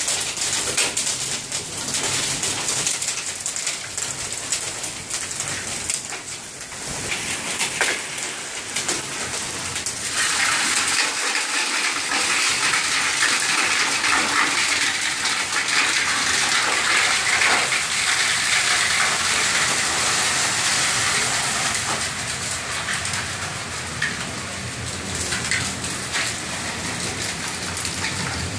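Hail and heavy rain falling together: a steady rush packed with small ticks as hailstones strike the pavement, shrubs and the house. It grows heavier for a stretch after about ten seconds, then eases.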